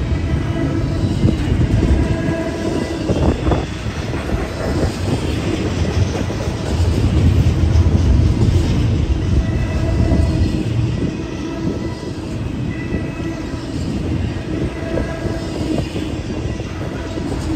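Freight train rolling past: a steady rumble with the clatter of wheels over the rails, and thin wheel squeal coming and going.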